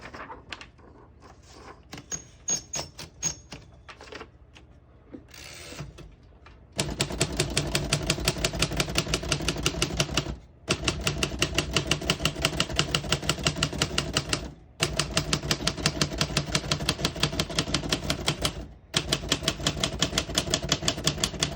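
A 1940 Royal Aristocrat portable manual typewriter being typed in fast runs of keystrokes: a few scattered clicks first, then four long bursts of rapid strikes with short pauses between them. Near the end the margin bell rings, marking the end of the line.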